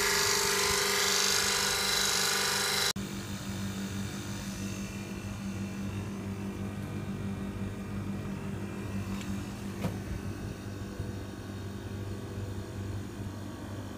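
Refrigeration condensing unit running: a loud rush of air from the condenser fan for about three seconds, then a sudden cut to a quieter, steady low hum of the running unit, with a faint click near ten seconds.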